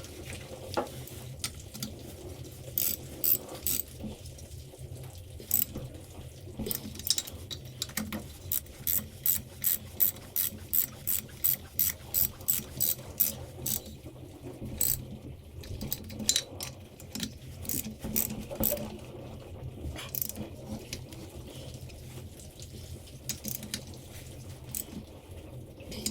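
Ratchet wrench with a 14 mm deep socket clicking as nuts are snugged down, in scattered strokes with a steady run of about two clicks a second in the middle.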